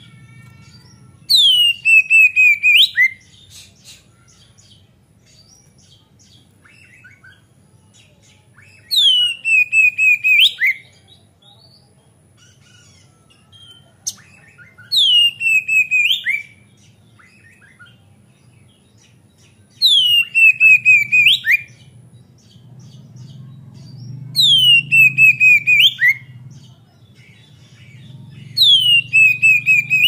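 Male oriental magpie-robin (kacer) singing: a loud phrase of rapid notes sliding down in pitch and ending with a quick upturn, repeated six times, every few seconds, with soft twittering between the phrases.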